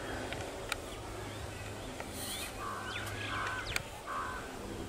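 A crow caws three times in the middle, over the steady low rumble of a passenger train running away down the track. A few sharp clicks and some short bird chirps come through as well.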